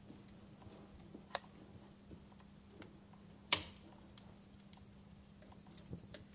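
Wood fire crackling in a fireplace: scattered pops and snaps, the loudest a sharp pop about halfway through, over a faint steady low hum.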